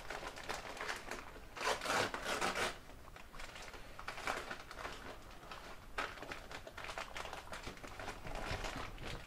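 Packaging rustling and crinkling as it is handled, in irregular bursts of small crackles, the loudest burst about two seconds in.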